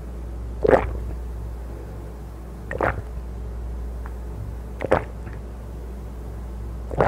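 Watermelon punch (hwachae) being drunk straight from a hollowed watermelon half: four short gulps about two seconds apart, over a steady low hum.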